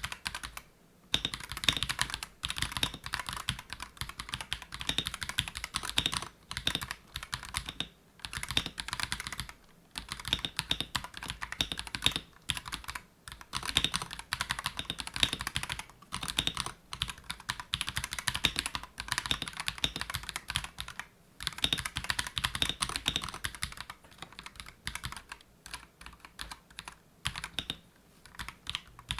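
Typing on an Akko 5075B Plus V2 mechanical keyboard: fast runs of key clicks broken by short pauses every second or two.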